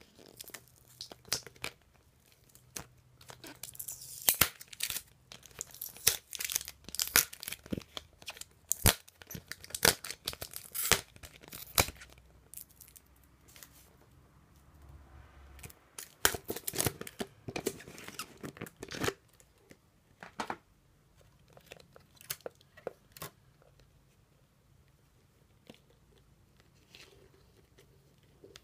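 Hands handling a thin clear plastic bottle packed with beetle-rearing soil: irregular crackles, crinkles and rustles of flexing plastic and shifting substrate. They come in dense clusters through roughly the first twenty seconds, then only a few scattered clicks.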